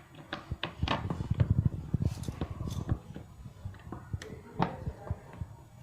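Quick clicks and light knocks from fitting a treadmill's plastic side cover and turning its small screws in with an Allen key, thickest between one and two seconds in, then scattered.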